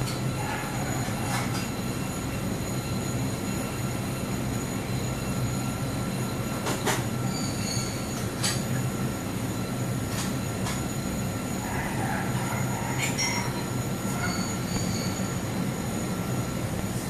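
LG air conditioner compressor running with a steady hiss over a low hum and several thin, steady high-pitched whines, with a few faint clicks along the way.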